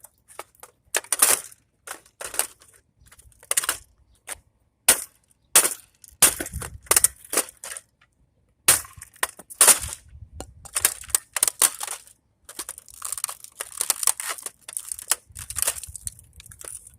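Irregular sharp clanks and crunches of scrap metal pieces being handled and knocked about, with a denser rattling stretch near the end.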